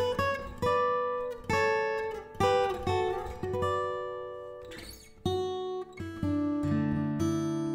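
Background music: acoustic guitar picked slowly, each note ringing out and fading.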